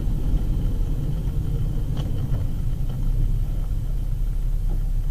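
Steady low rumble of a car's engine and road noise, picked up by a dash cam inside the cabin, with a few faint ticks about two seconds in.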